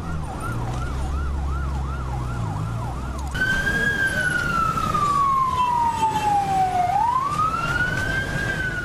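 Emergency vehicle sirens. First a fast rising-and-falling yelp, about three cycles a second, over a low rumble. Then, after an abrupt change about three seconds in, a slow wail that falls over about three seconds, rises again and starts to fall.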